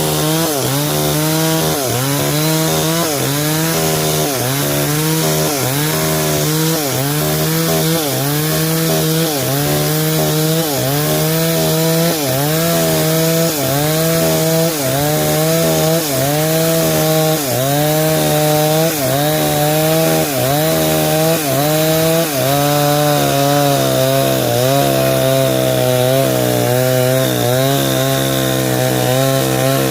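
Stihl 070 two-stroke chainsaw running under load while ripping timber lengthwise. Its engine speed dips and recovers about once a second, and from about two-thirds of the way through it settles at a lower, steadier pitch.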